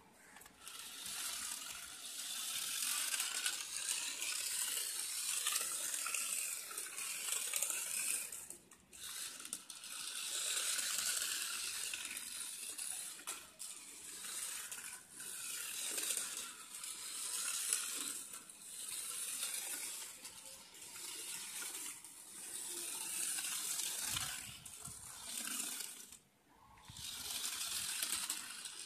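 A small battery-powered toy car running across floor tiles: its tiny motor and gears whir and rattle with a hissy sound that swells and drops every couple of seconds as it drives about, cutting out briefly twice.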